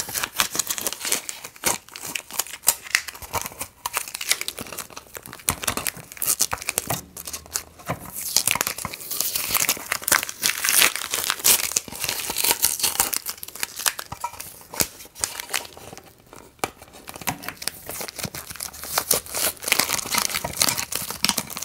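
Blue painter's tape being peeled off the back of a carved wooden piece and balled up: a continuous crackling, tearing and crinkling, with louder tearing stretches about halfway through and near the end.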